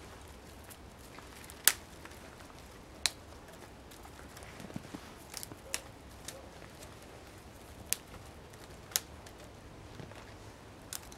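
Small twigs snapping sharply as they are broken off snow-covered branches: about half a dozen dry cracks a second or two apart, the loudest one near the start.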